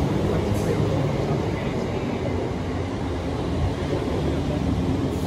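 Train running at a station, a steady low rumble.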